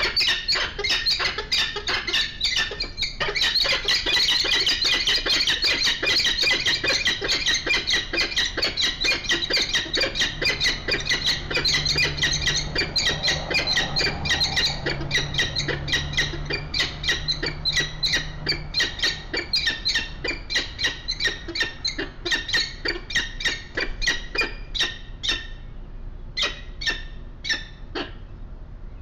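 Peregrine falcons calling at the nest box: a long, fast series of short, high, squeaky calls that thins out to separate calls near the end.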